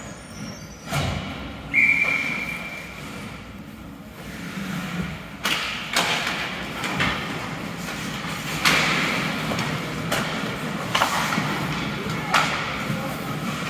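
Ice hockey play in a rink: a string of sharp knocks and thuds from puck and sticks striking the ice and boards. A short, steady high whistle sounds about two seconds in.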